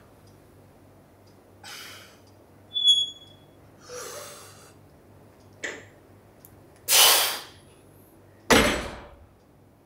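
A weightlifter's sharp, forceful breaths as he braces over a loaded trap bar and pulls a deadlift. There are five breaths, the last two the loudest. About three seconds in there is a brief high-pitched ping.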